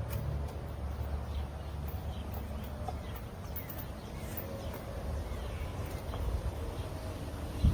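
Low wind rumble on the microphone, with faint, irregular clinks of a steel chain being wrapped around a fence post and hooked into a carabiner, and a few short bird chirps.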